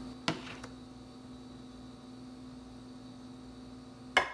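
A steady electrical hum, with metal tongs knocking against a ceramic bowl twice: once just after the start and more loudly near the end.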